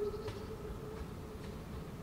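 The end of a narrow-gauge steam locomotive's whistle: one steady tone that fades out about half a second in. A faint low rumble is left behind.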